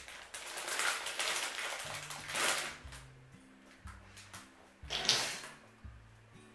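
Plastic snack bag crinkling and rustling as it is handled, most in the first three seconds and again in a brief burst about five seconds in. Quiet background music with a slow run of low notes plays underneath.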